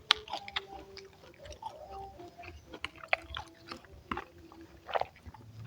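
Close-up chewing and biting of a person eating, with many sharp wet mouth clicks at irregular intervals, the loudest just after the start.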